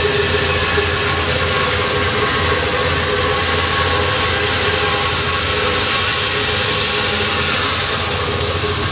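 Band saw running steadily, its blade cutting a curve through a thick round of wood.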